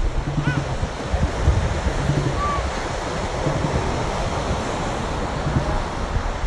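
Ocean surf washing onto a sandy beach, a steady rush of breaking waves, with wind buffeting the microphone as a low rumble.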